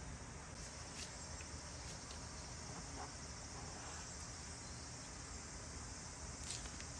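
Faint steady high hiss with a few soft ticks.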